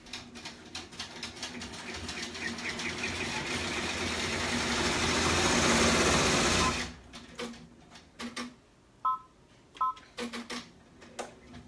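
Embroidery machine stitching out a design: a fast, even rattle of the needle that grows louder and then stops abruptly about seven seconds in. A few scattered clicks and two short electronic beeps follow.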